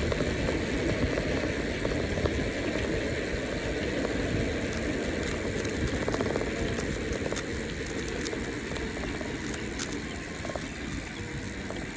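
Wind buffeting the microphone and tyres rumbling on the road as a bicycle coasts fast down a steep hill, with scattered light clicks and rattles.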